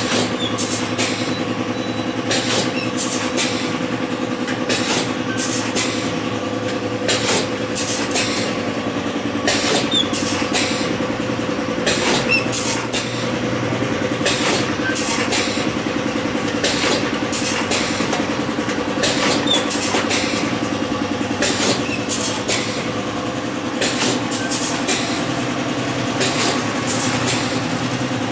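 Automatic vertical pouch packing machine for chocolate balls running: a steady motor hum with frequent sharp clicks and clacks from its mechanism.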